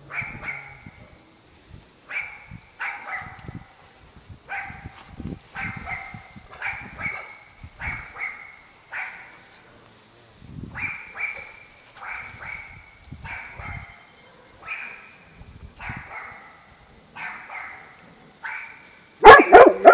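A dog barking over and over, about one bark a second, with a much louder burst of barks near the end.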